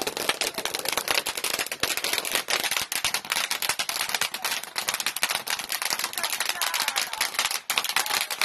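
Ground fireworks crackling: a dense, rapid stream of small pops.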